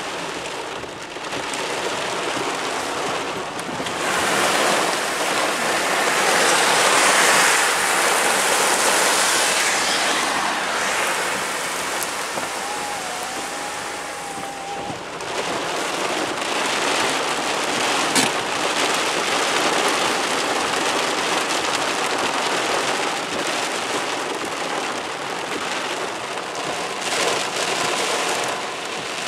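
Heavy downpour pelting a car's windscreen and body, heard from inside the car as a dense, steady wash of rain that swells heaviest about four to ten seconds in.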